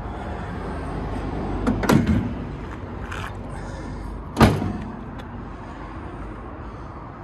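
Car door on a 1957 MGA roadster shutting with one sharp thud about four and a half seconds in, after a few lighter knocks around two seconds in, over a steady low rumble.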